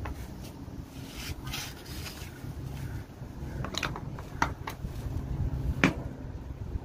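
Pomeranian puppy chewing celery leaves from a potted plant: scattered short, sharp crunches, several between about four and six seconds in, over a steady low rumble.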